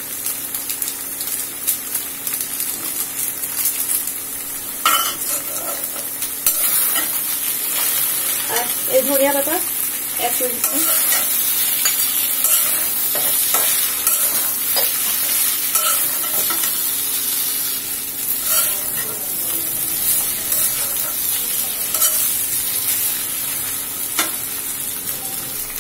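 Maggi noodles with vegetables, egg and chicken sizzling as they stir-fry in a metal kadai, with a steady frying hiss and a metal spatula scraping and knocking against the pan every few seconds.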